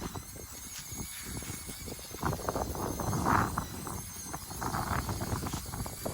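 Redcat Ascent-18 1/18 brushed electric rock crawler driving over rough ground: a run of small clicks and knocks from its tyres and chassis, with louder scrabbling spells about two seconds in and again near five seconds.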